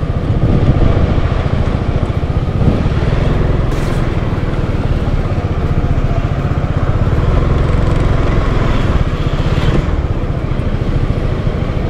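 Honda Forza 350 scooter's single-cylinder engine running steadily as it is ridden slowly.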